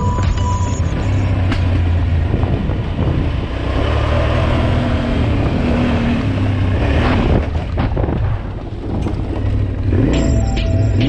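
Yamaha Ténéré 700's parallel-twin engine running steadily under way, with ground and wind noise over it.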